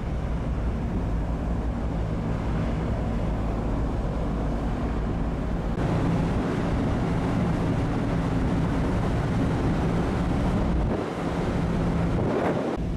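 Steady low drone of a large car ferry's engines and machinery, heard on the open deck with wind rushing over the microphone. A stronger gust comes near the end.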